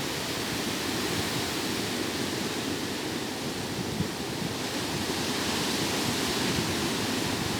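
Ocean waves breaking on a beach: a steady, continuous rush of surf with no single crash standing out.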